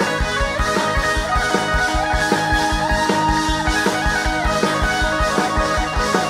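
Live band playing an instrumental break of a Thai mor lam pop song: a steady, fast kick-drum beat under electric guitar and keyboard melody.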